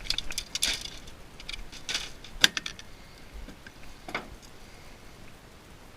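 Metal clicks and clinks of a small satellite receiver box being taken apart with hand tools, snips among them. The sharpest click comes about two and a half seconds in, and the clicks thin out over the last few seconds.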